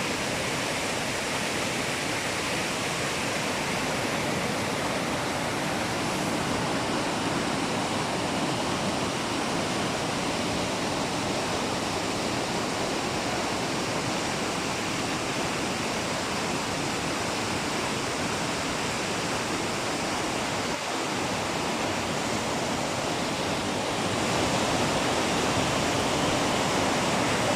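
River water rushing in a steady, full noise, getting a little louder near the end.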